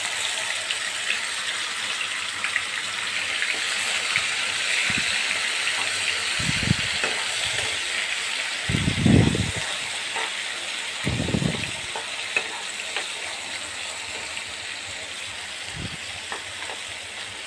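Wet green masala paste sizzling steadily in hot oil with cumin seeds in a non-stick pan, cooking off its water, while a steel spoon stirs it. Three heavier stirring noises stand out, at about six, nine and eleven seconds in.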